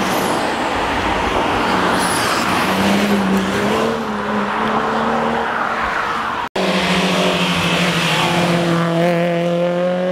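Hillclimb competition cars driven hard up the course. One car's engine runs at high revs, its note edging upward as it climbs. After a brief dropout about six and a half seconds in, a second car's engine rises steadily in pitch as it accelerates.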